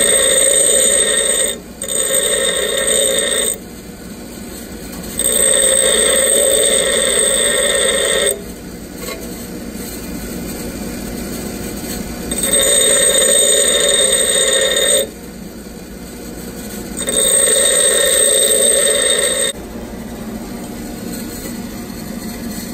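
Bench grinder running while a drill bit held in a grinding fixture is pressed against the wheel in five passes of two to three seconds each, each pass a loud, high-pitched ringing grind. Between passes only the grinder's running hum is heard. The passes grind the primary clearance flats on the drill point.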